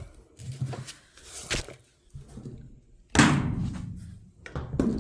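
Metal wrenches being set down and knocking against the magnetic wrench holder and the workbench: a few light clicks, then a loud clunk about three seconds in that rings on briefly, and another knock near the end.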